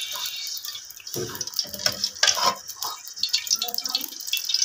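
Cooking oil poured in a thin stream from a steel ladle into a pan (karahi), trickling and splashing, with scattered crackles and spits where it meets water left on the pan and ladle: the thin pour is meant to drive that water off as the oil heats.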